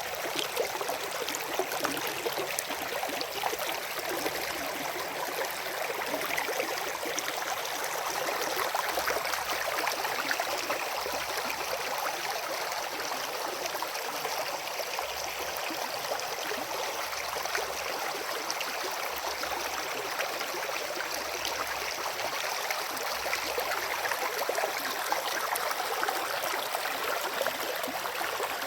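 Running water of a stream, a steady rush with fine splashing and trickling.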